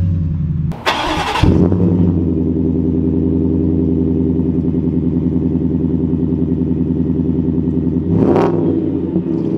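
Borla exhaust on a Shelby Super Snake F-150's supercharged 5.0 V8. There is a short loud burst about a second in, then a steady, pulsing idle, then a quick rev near the end.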